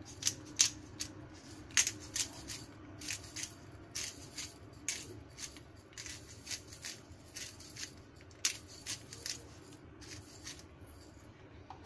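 Hand-twisted pepper grinder cracking black peppercorns over the meat: an irregular run of crisp clicks that thins out near the end.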